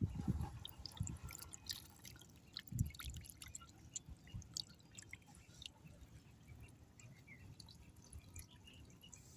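Faint water dripping and small splashes, irregular ticks scattered throughout, with a few soft low thumps in the first three seconds.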